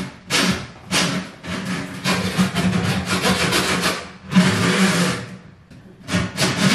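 Hand-cranked drum drain snake being turned and fed down a bathtub drain, its cable scraping through the drum and pipe in a run of uneven strokes. It is working at a slow-draining tub clog.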